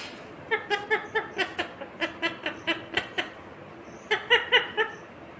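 Ringneck parrot chattering: quick runs of short, pitched notes, about three to four a second, with a pause just before four seconds in, then a shorter run.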